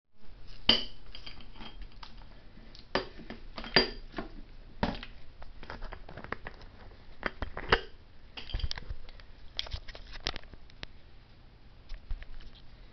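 Plastic Ensure Plus bottle being handled and its cap worked open close to the microphone: a run of irregular clicks, crackles and rustles, the sharpest a click just under a second in, with more around four and eight seconds in.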